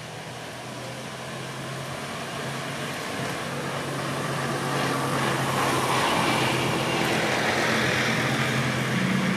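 A motor vehicle's engine running steadily with a low hum, growing louder over the first six seconds as it comes closer, then holding level.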